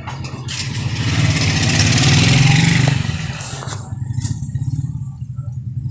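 Sharp top-load automatic washing machine draining its tub: a rush of water builds, is loudest for about two seconds, and falls away about four seconds in, over a steady low hum from the machine.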